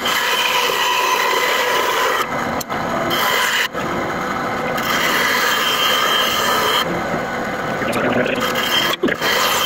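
A walnut hammer-handle blank being shaped by a tool cutting or abrading the wood: continuous rubbing and scraping in long passes of a few seconds each, with brief breaks about two, four, seven and nine seconds in.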